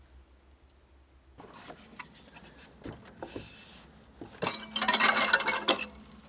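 Small hard objects clinking and clattering: scattered clicks and knocks, then a louder burst of metallic clatter lasting about a second, around two-thirds of the way through.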